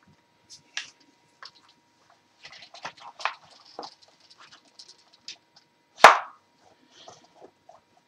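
Handling noises: clothing rustling and small clicks as gear is moved about, with one sharp knock about six seconds in that is the loudest sound.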